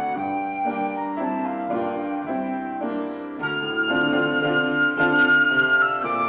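Instrumental music: a flute melody over keyboard accompaniment, with a long high note held through the second half.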